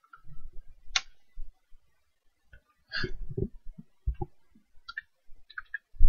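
Computer keyboard being typed on: irregular clicks of single keystrokes with dull low knocks among them.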